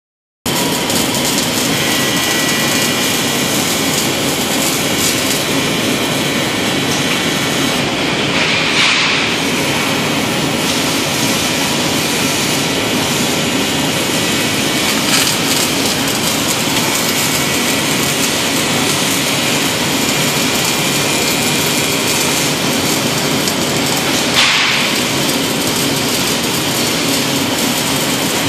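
Robotic arc-welding cell: a loud, steady hiss of the welding arc and shop machinery, with brief louder swells about 9 and 24 seconds in.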